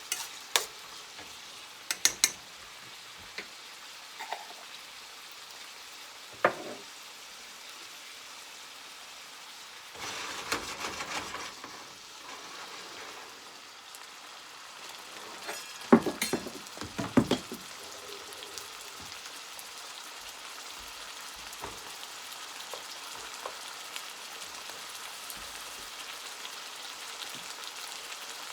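Sliced peppers, onions and garlic frying in vegetable oil in a pan, a steady sizzle, with a spatula clinking and scraping against the pan now and then, several sharp clinks together just past halfway.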